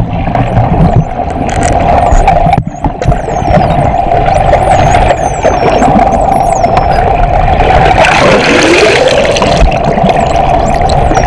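Bottlenose dolphins whistling underwater: many high, thin whistles gliding up and down, one after another, with a few clicks, over the steady drone of the boat's engine heard through the water, which is the loudest sound.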